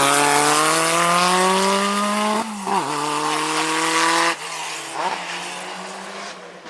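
Historic rally car engine under hard acceleration, its pitch climbing for about two and a half seconds. There is a brief break as it shifts up, then it pulls again until the sound drops away about four seconds in and fades.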